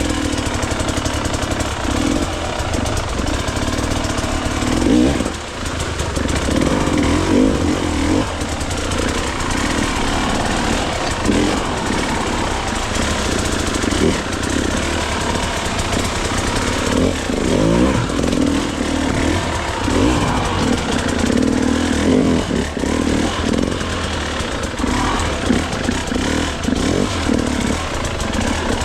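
Dirt bike engine running continuously, revving up and down in bursts as the bike is ridden through deep creek water.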